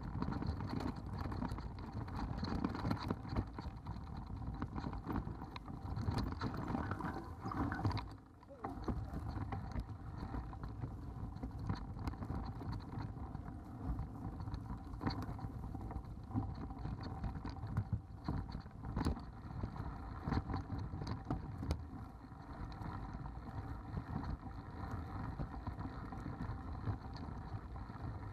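Mountain bike ridden over a rough dirt singletrack: constant rattling and knocking of the bike as it rolls over roots and rocks, with tyre noise on the dirt. It drops briefly just after eight seconds in.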